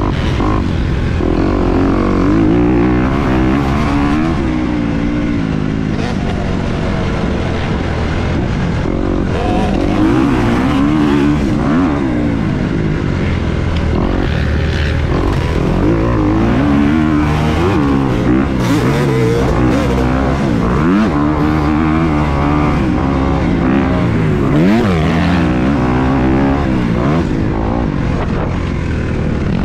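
2023 Kawasaki KX250 four-stroke single-cylinder dirt bike engine under hard riding, its pitch repeatedly climbing as the throttle is opened and dropping back on shifts and off-throttle moments, about a dozen times over the stretch.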